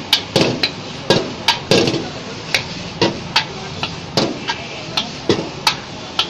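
Metal spatula striking a wok in irregular sharp clangs, about three a second, as rice is stir-fried over a steady hiss of frying.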